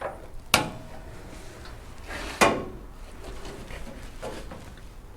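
Two sharp metal knocks about two seconds apart, the first with a brief ring: a steel inner fender panel being shifted and tapped into position against the chassis rail.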